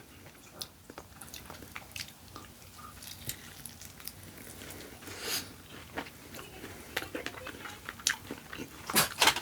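Close-miked chewing and biting of food: scattered small wet clicks and smacks, with a louder pair of bites near the end.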